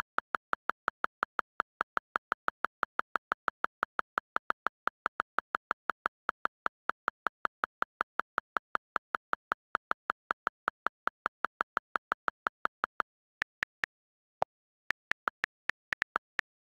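iPad on-screen keyboard clicks: a steady run of about five clicks a second as the backspace is held and text is deleted. After a short pause about 13 seconds in, a second, higher-pitched run of key clicks follows as new words are typed.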